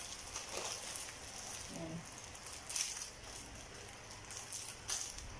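Clear plastic bag crinkling as it is opened and a fabric headband is pulled out of it, with a few sharper rustles.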